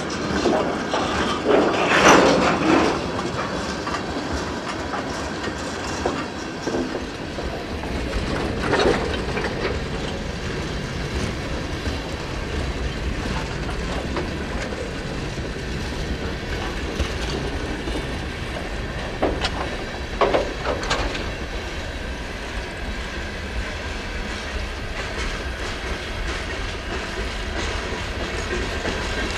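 Freight train cars rolling past, wheels clicking over rail joints over a steady low rumble, with several louder clanking bursts about two, nine and twenty seconds in.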